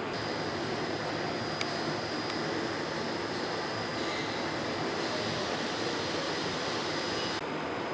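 A powered-up metro train standing still, giving a steady hiss and hum with a thin high whine. There is a single click about a second and a half in, and the whine drops away near the end.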